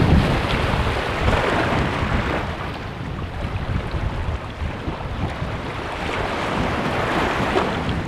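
Wind buffeting the microphone in uneven gusts, over the steady wash of sea surf on a stony shore, swelling about a second in and again near the end.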